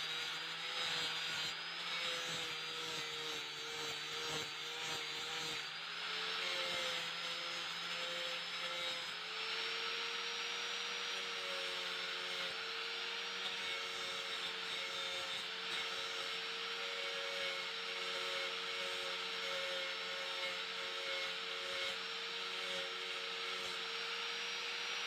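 Electric angle grinder running continuously with a high, steady motor whine while its disc grinds a flat piece of wood; the whine steps up slightly in pitch twice in the first ten seconds.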